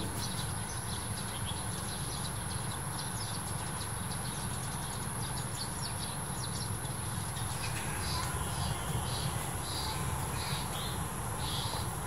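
A flock of Eurasian tree sparrows chirping in quick, short, high notes over a steady low rumble and a constant thin high tone. From about eight seconds in, a bird call repeats roughly twice a second.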